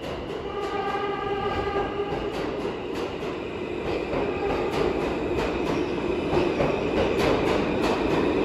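R211 subway train running through an underground station without stopping. A steady pitched tone with several overtones sounds for the first couple of seconds. Then the wheels clatter rapidly over the rail joints, growing louder as the cars go by.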